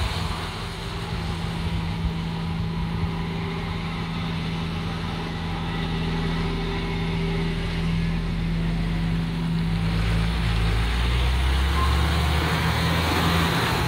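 Massey Ferguson tractor's diesel engine running steadily, then pulling away with a silage trailer, its deep rumble growing louder over the last few seconds. Tyre hiss from a car passing on the wet road near the start.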